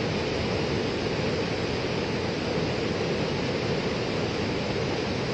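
Brown floodwater from a burst dam rushing past in a fast, churning torrent with large standing waves: a steady, unbroken rush of water.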